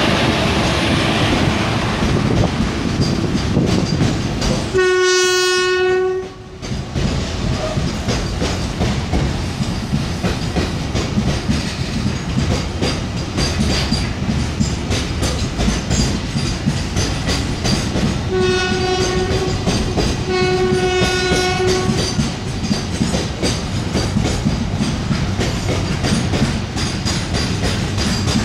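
Container freight train's wagons rolling past, a steady rumble with rapid clicking of wheels over rail joints. A train horn sounds once about five seconds in, then twice more around eighteen and twenty seconds in.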